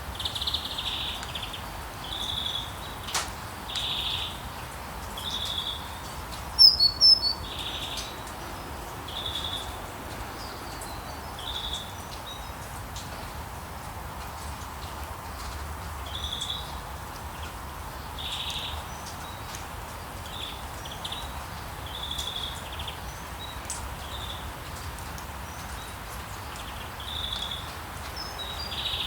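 Birds chirping in short calls every second or two over a steady hiss of rain and town ambience. About seven seconds in, a louder burst of three high chirps.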